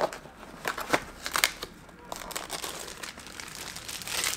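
Clear plastic packaging bags crinkling as small wrapped camera accessories are handled and lifted out, with several sharp crackles in the first second and a half and a longer rustle near the end.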